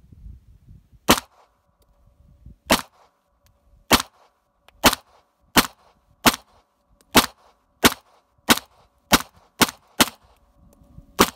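Beretta 92FS 9mm pistol firing a string of thirteen shots, spaced out at first and then quicker, about two a second toward the end.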